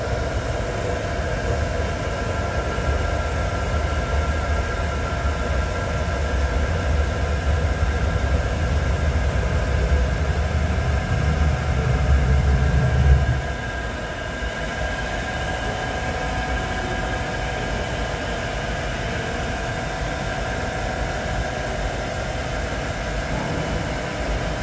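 Steady machinery hum with several steady whining tones over it. A low rumble underneath stops abruptly about 13 seconds in.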